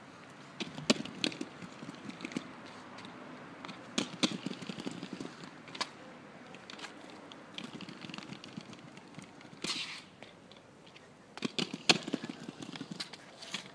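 Small plastic clip-on heel wheels rolling over concrete paving slabs: a continuous rough rolling rattle broken by sharp clicks and knocks, the loudest about a second in and again near the end.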